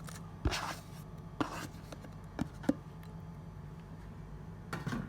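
Chopped vegetables and seasoning being put into a blender jar: a few short, soft knocks and rustles over a faint steady low hum.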